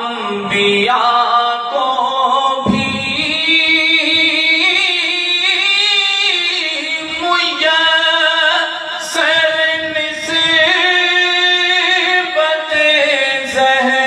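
A man chanting a marsiya, an Urdu elegy, in a slow melody through a microphone, holding long wavering notes that glide from pitch to pitch.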